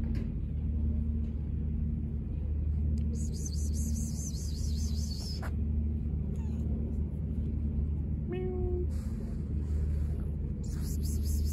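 Tabby cat purring steadily while being stroked, with a short meow about eight seconds in. Bursts of scratchy rustling come from the hand rubbing the cat's fur and head.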